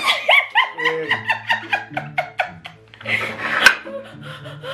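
A woman laughing in quick repeated bursts, with a breathy, gasping stretch about three seconds in, then more laughter.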